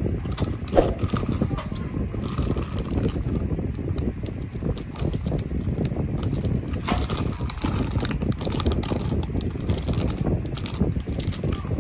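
Thin clear plastic bags of small plastic minifigure parts being squeezed and handled, crinkling and rustling continuously, with the loose pieces inside clicking against each other.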